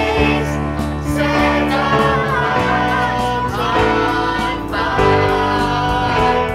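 Christian worship song: a group of voices singing over instrumental backing, with held chords that change every second or so.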